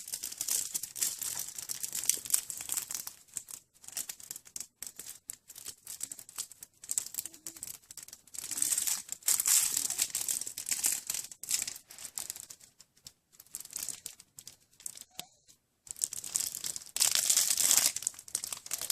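Crinkly material being handled and scrunched, an irregular crackling rustle that comes in bursts with short pauses, loudest around the middle and near the end.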